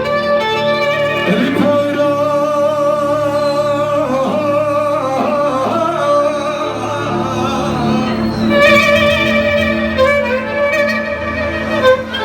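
Live Turkish folk music: a slow, ornamented melody on bowed strings over a sustained accompaniment, with a sung line.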